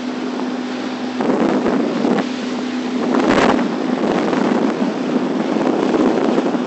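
Wind rushing and buffeting over the microphone of a small open fishing boat under way, with a steady low hum from the boat's motor underneath. A few louder rushes come through, the strongest about three seconds in.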